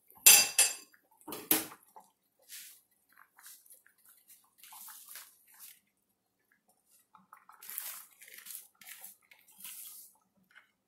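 A glass pot lid clatters against a stainless steel saucepan twice in the first two seconds, with a ringing edge. Quiet scattered bubbling of boiling broth follows, then from about seven seconds in, soft rustling and scraping as moringa leaves are pushed off a plate into the pot.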